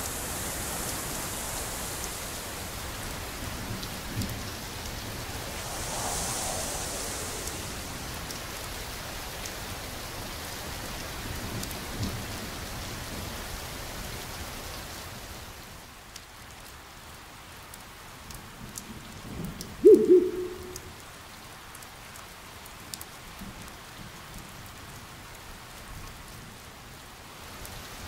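Rain sound-effect bed, a steady hiss with a few low rumbles, which thins after about 16 seconds to scattered drips. About 20 seconds in, a single loud, short low-pitched call rings out.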